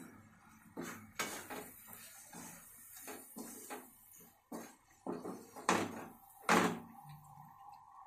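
Kitchen clatter: a run of short knocks and clunks, like cupboard doors, pots and utensils being handled, the loudest two near the end. Then a steady whistle-like tone starts and holds.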